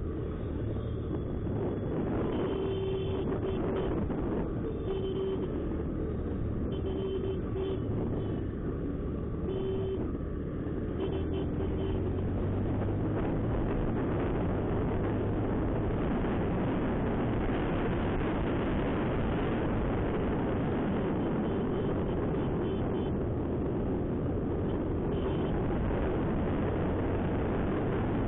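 Honda SP125's single-cylinder engine under way and accelerating, mixed with a steady rush of wind that grows louder after about twelve seconds as the speed rises. Several short vehicle horn beeps sound in the first half.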